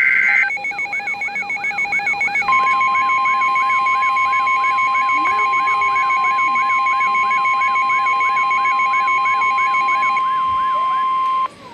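Emergency alert tones from a NOAA Weather Radio / EAS broadcast. It opens with the tail of a SAME data burst, then a fast beeping alarm with about two rising-and-falling chirps a second. About two and a half seconds in, the steady NWR 1050 Hz warning alarm tone joins and holds until it cuts off suddenly near the end, signalling that a warning message follows.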